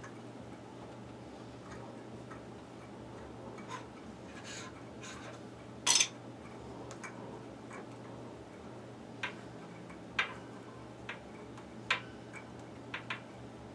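Scattered metallic clicks and ticks of a hand tap being turned in a tap wrench to thread a freshly drilled hole, the loudest about six seconds in, over a steady low hum.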